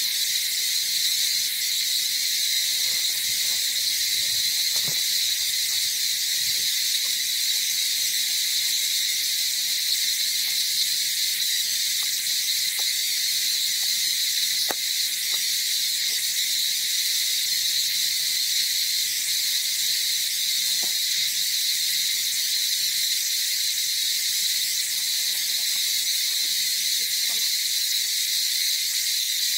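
Steady, unbroken high-pitched drone of an insect chorus, with a couple of faint ticks.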